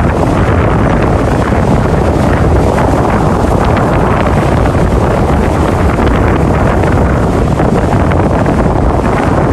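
Sea waves washing in a loud, steady rush, with wind buffeting the microphone.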